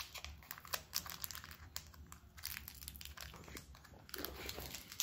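Foil wrapper of a Pokémon trading card booster pack crinkling faintly and irregularly in a child's hands as it is handled and opened.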